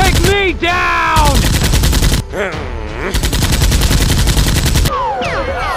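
Rapid automatic-gunfire sound effects in two long bursts: the first is already going and stops a little over two seconds in, and the second starts about three seconds in and lasts about two seconds. Arching, whistle-like tones run over the first burst, and falling whistle-like glides come near the end.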